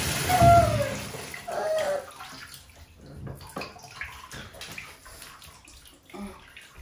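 Water poured from a cup splashes into a bathtub over an English bulldog puppy, which gives short falling whines; about two seconds in the pouring stops, leaving small drips and splashes.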